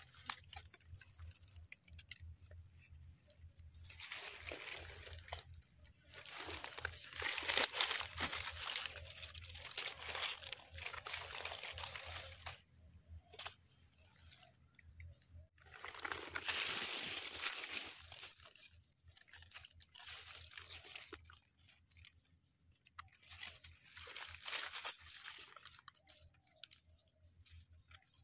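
Dry fallen leaves crunching and rustling in irregular bursts as a gloved hand brushes aside the leaf litter on a dry forest floor.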